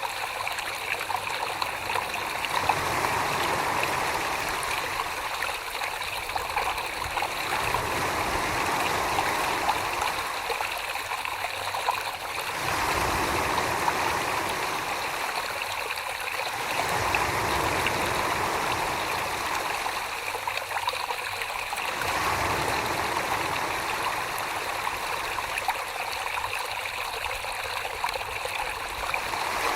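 Wet clay and slip being worked by hand on a spinning potter's wheel, a continuous watery sloshing that swells and eases about every five seconds.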